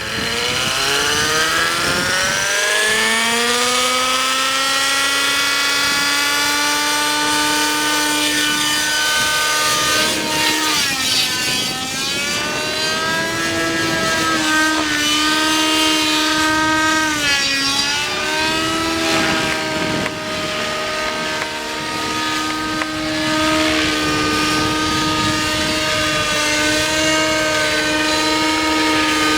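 Radio-controlled model aircraft's electric motor and rotor whining as they spool up over the first few seconds, then running steadily. The pitch dips and swoops twice as the throttle changes, with a rushing sound behind it.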